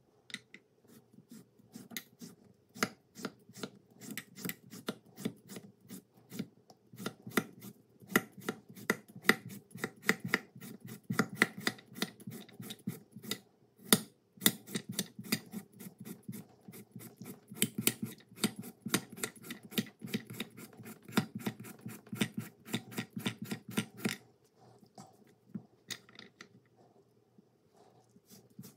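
Chef's knife making rapid thin cuts through a cucumber on a bamboo cutting board, the blade stopping on chopsticks laid either side: an even run of crisp cuts, about four a second, that thins out to a few scattered cuts near the end.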